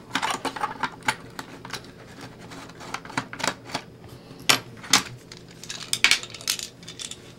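Irregular clicks, taps and small rattles of a hard plastic RC car body shell and its small parts being handled, with a few sharper clicks in the second half.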